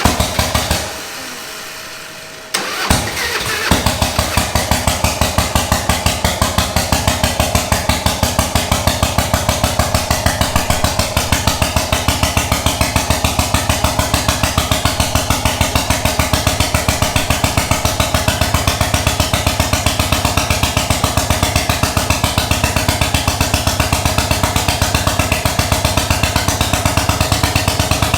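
Harley-Davidson 1300cc V-twin go-kart engine starting. A loud, uneven first few seconds, then it catches and settles into a steady, evenly pulsing run.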